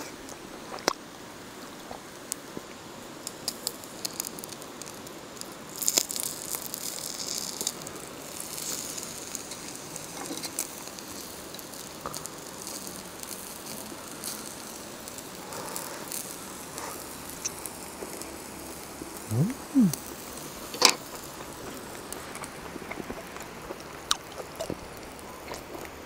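Camp cooking and table sounds: scattered clicks and taps of utensils, with a short hiss about six seconds in and two quick rising squeaks near twenty seconds.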